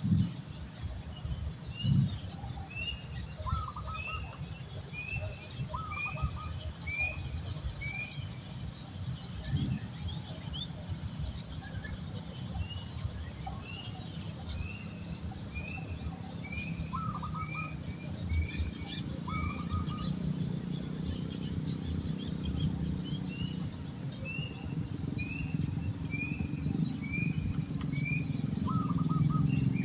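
Outdoor wildlife: a bird repeats short chirps about twice a second, with some lower notes now and then, over a steady high insect drone. A low rumbling noise runs underneath and grows louder near the end.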